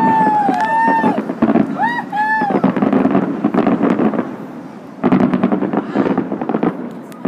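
Fireworks display popping and crackling over the chatter of a crowd, with a few short rising-and-falling whistles near the start and about two seconds in.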